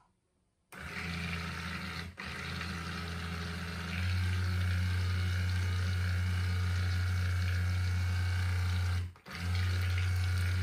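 Immersion (stick) blender running in cold-process soap batter, blending in lemon juice on the way to trace. Its steady motor hum starts about a second in, gets louder about four seconds in, and cuts out briefly twice, near two seconds and near nine seconds.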